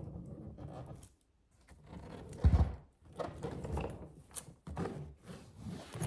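A suitcase being handled close to the microphone: irregular rubbing and scraping, with a dull thump about two and a half seconds in and a few lighter knocks after it.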